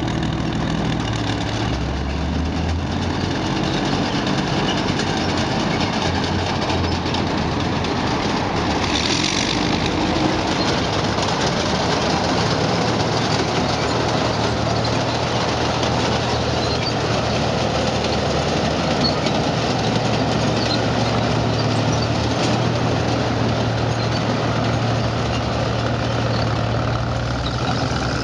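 Soviet heavy armour (an ISU-152 self-propelled gun and an IS-3 heavy tank) running on V-2 V12 diesel engines. The noise is loud and steady, with a low, even engine hum setting in about halfway through.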